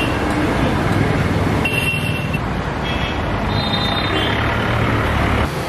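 Street ambience: steady road traffic noise from passing vehicles, with a few brief high tones.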